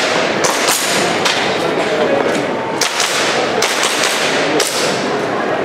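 Airsoft pistol fired at targets in a string of sharp cracks at irregular intervals, about eight in all, over the steady din of a large hall.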